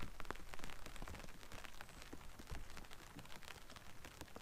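Faint, irregular patter of raindrops on the canvas of a fishing brolly overhead.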